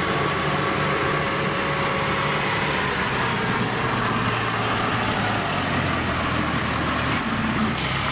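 Engine of a small tracked rice-hauling carrier running steadily under load as it drives through a muddy rice field, a low even drone.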